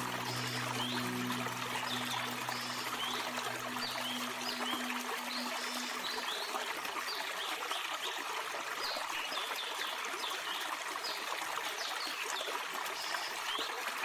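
Small waterfall trickling and splashing over rocks, a steady rush of water, with short high chirps repeating throughout. Low held music notes fade out about five seconds in.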